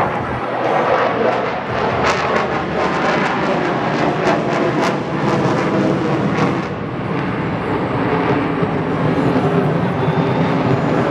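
Loud jet noise from an F-22 Raptor's two Pratt & Whitney F119 afterburning turbofans as it flies a power loop. Sharp crackles stand out between about two and five seconds in, and the sound turns duller after about seven seconds.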